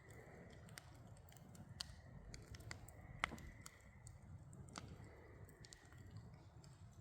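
Campfire crackling faintly, a few scattered sharp pops from the burning wood, the loudest a little after three seconds in, over a low steady rumble.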